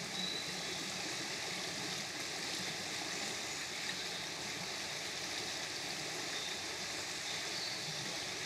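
A river running fast over a shallow rocky bed: a steady, even rush of water.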